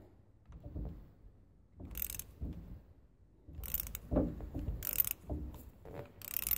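Socket wrench ratchet clicking in four short bursts as it is swung back between pulls, loosening stiff bolts on a hydraulic cylinder, with low metal knocks in between.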